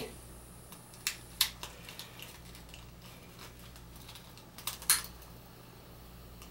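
A long-reach utility lighter clicking as its trigger is pulled: four short clicks in the first two seconds, then two more near the end as it lights. A low steady hum runs underneath.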